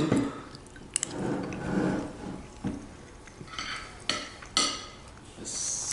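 Cutlery clinking and scraping against a plate during eating, in a few short separate strokes with brief scrapes in the second half.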